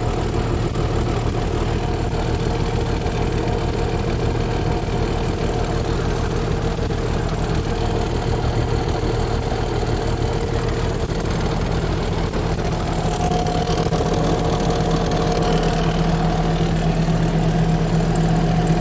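Bobcat S650 skid steer's diesel engine running steadily at idle, its speed rising a little about twelve seconds in.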